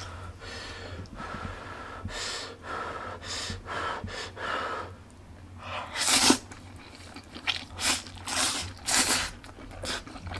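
Slurping of jjajang (black bean sauce) instant noodles: sharp, airy sucking slurps, the loudest about six seconds in and several shorter ones over the next three seconds, with quieter mouth noises before them.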